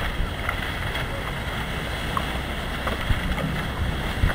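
Wind buffeting the microphone over the steady wash of ocean surf, with a few faint clicks.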